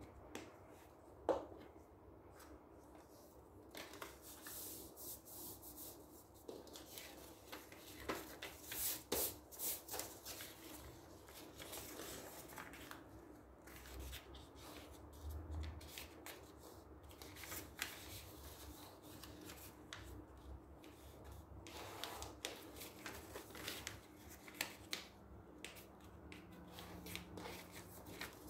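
Sheets of paper being handled and folded: soft rustling, sliding and creasing with scattered light taps on the table. A single sharp click about a second in.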